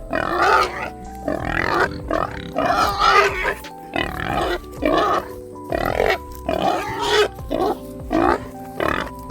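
Pigs squealing and grunting in a rapid series of short outbursts, about one a second, over background music with steady held notes.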